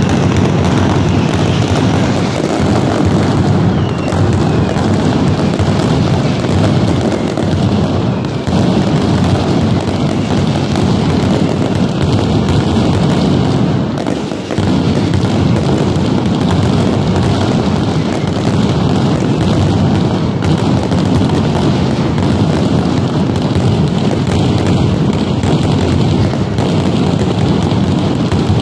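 Finale of a night mascletà: a loud, continuous barrage of firecracker explosions so dense that the bangs merge into one unbroken noise, with aerial shells bursting overhead. It eases briefly about halfway through, then picks up again.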